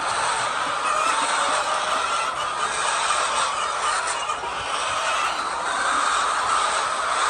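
Dense, continuous din of many chickens calling at once, a flock of hens clucking and squawking together.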